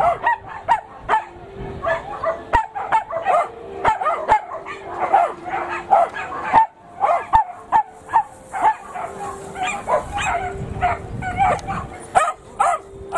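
Excited dogs barking and yipping in a rapid string of short, high calls, a few a second, with a brief pause about halfway through: small sighthounds worked up by a chase after a coursing lure.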